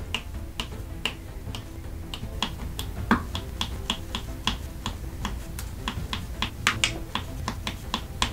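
Resin diamond-painting drills clicking as a drill pen presses them one by one onto the sticky canvas: short, crisp clicks about two to three a second, one louder click about three seconds in. Faint background music underneath.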